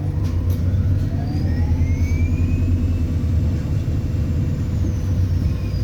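ADL Enviro400 Hybrid bus heard from the passenger cabin: a steady low rumble under a turbo whistle that rises in pitch for about three seconds as the bus pulls away, holds, then drops near the end.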